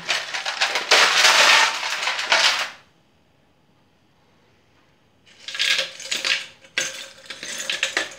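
Ice cubes clattering as they are taken from a plastic tub and dropped into a plastic blender jar. There are two spells of rattling clicks, with a quiet pause of about two seconds in the middle.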